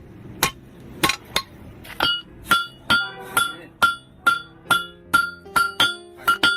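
Hammer blows on a hot 20 mm steel rod being forged, about two strikes a second, each with a short metallic ring.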